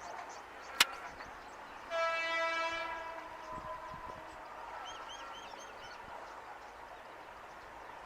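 A train horn sounds once for about a second, a couple of seconds in, its pitch sagging slightly as it fades. Just before it comes a single sharp click, and a few short high chirps follow near the middle.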